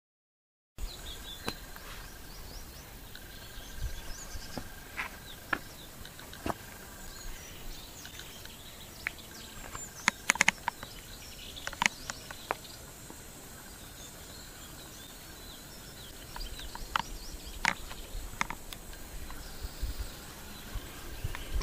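Outdoor ambience that cuts in abruptly about a second in. It holds a faint steady high note, short tones that come and go, and scattered sharp clicks and taps. Low thumps become more frequent near the end.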